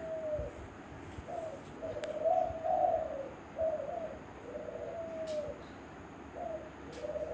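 A pigeon cooing: a string of short low calls that rise and fall, repeated over and over.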